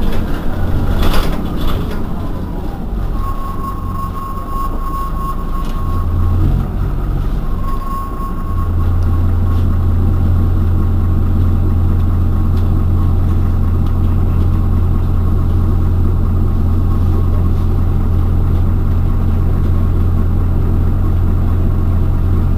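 Irisbus Citelis 12 city bus engine idling at a stop with a steady low drone, which gets louder and fuller about eight seconds in. A thin high whine sounds over it for a few seconds in the first part, with a short break.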